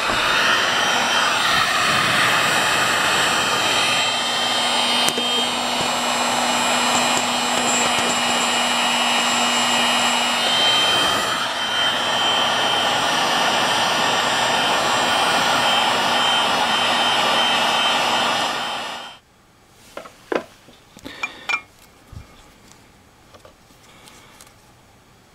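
Heat gun blowing hot air to shrink heat-shrink tubing over soldered pickup coil wire joints, running steadily. It is switched off about nineteen seconds in and stops abruptly, and a few small clicks of handling follow.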